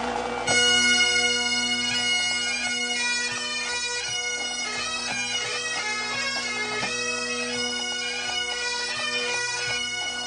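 Bagpipes playing a tune over a steady drone, coming in about half a second in.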